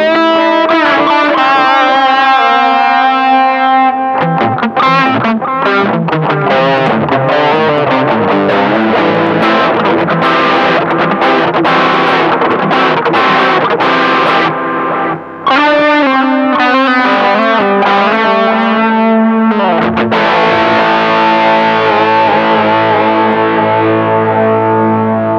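Distorted electric guitar played through a Pedaltank Time Capsule 2 analog delay pedal. A run of quick picked notes with echo repeats ends about 20 seconds in on a held chord that rings on to the end. The repeats have the warm tone without highs that is typical of an analog delay.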